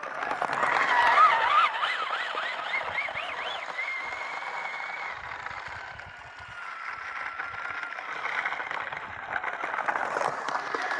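Electric motor of a two-wheel-drive Traxxas Slash RC truck whining as it pushes snow with its plow. The pitch swings quickly up and down with the throttle in the first few seconds, then holds steady, higher at first and lower later, over a hiss of scraping snow.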